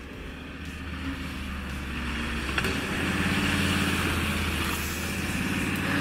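Pickup truck engine pulling hard up a wet, slippery slope, the revs and loudness climbing, with a rising hiss from about halfway in.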